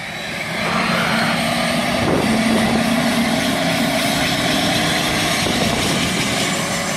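Helicopter running on the ground with its main rotor turning slowly: a steady turbine and rotor noise, with a tone that climbs slowly in pitch from about two seconds in, as the engine spools up.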